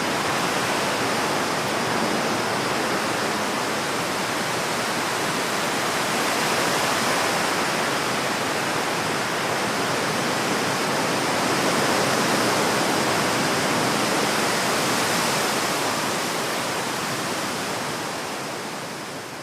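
Strong wind blowing, a steady, even rushing that fades out over the last few seconds.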